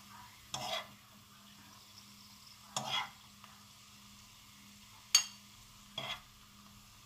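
Stir-fried garlic scapes being picked out of a nonstick frying pan and set on a small plate: four short scrapes and rustles, the third a sharp click, loudest of all, a little past the middle. A faint steady hum runs underneath.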